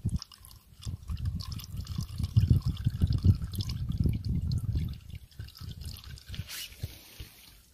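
Used engine oil draining from a motorcycle's crankcase drain hole in a thin stream into a plastic canister, trickling and dripping onto the oil already in it.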